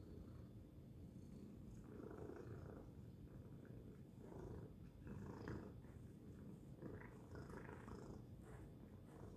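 Tabby cat purring steadily, with a few brief soft rustling sounds over the purr as it shifts and grooms in a cardboard box.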